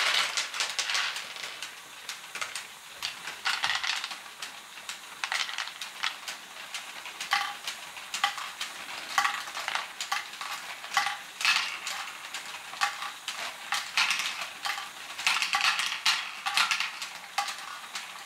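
A LEGO Great Ball Contraption pump module running loaded with small plastic balls: an irregular stream of clicks and clatter as the balls knock against each other and the plastic parts while the pump pushes them through. Densest in the first second or so as a freshly poured load settles, then a looser run of clicks.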